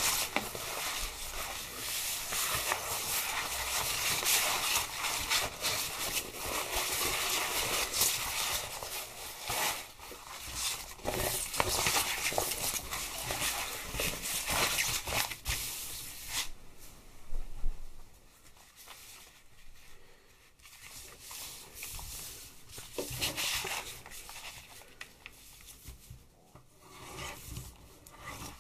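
Thin plastic sheeting from a dog's paddling pool being handled and smoothed out, a dense crinkling and rustling. A little past halfway through it turns quieter, with only occasional softer rustles and scrapes.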